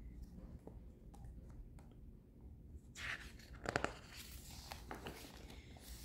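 Paper page of a picture book being turned by hand: a soft rustle about three seconds in and another a moment later, with a few faint handling ticks.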